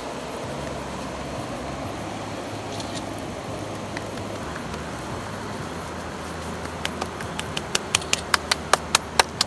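Background music: a steady low bed with a stepping bass, joined about seven seconds in by a quick run of short percussive notes, about five a second, growing louder.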